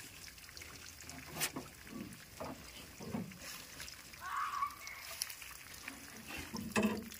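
Pigs in a steel crate giving a few short, soft grunts, with a sharp click about a second and a half in.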